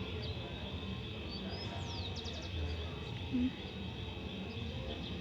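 Steady background with a constant high-pitched whine, and a bird chirping briefly in a quick series of high notes about two seconds in.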